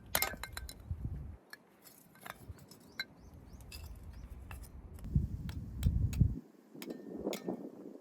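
Light clinks and clicks of small hard objects being handled and set down, some ringing briefly, with low rumbling noise in between.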